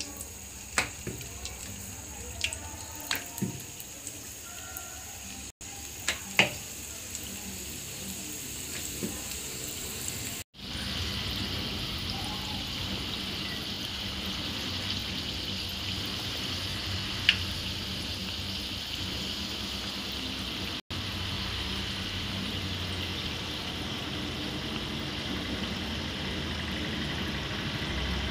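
Chicken-filled dough balls deep-frying in hot oil in a steel pan: scattered clicks and pops at first, then from about ten seconds in a steady sizzle of vigorously bubbling oil.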